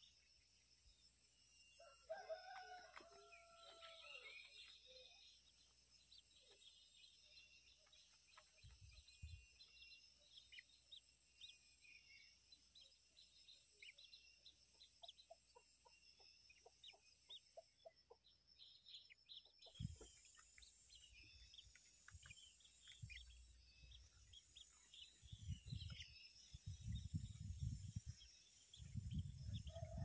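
Faint outdoor ambience: a rooster crows once, about two seconds in, over a high insect buzz that pulses about once a second and scattered small bird chirps. Low bumps and rumbling come close to the microphone near the end.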